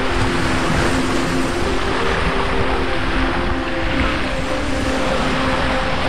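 Sea surf washing onto a beach in a continuous rush, with a wave surging up about four seconds in. Soft sustained background music tones sit underneath and shift pitch now and then.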